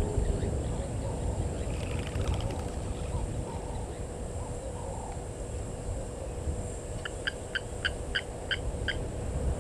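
A bird calling a quick run of about eight short, evenly spaced notes near the end, over a continuous low rumble of wild outdoor background noise.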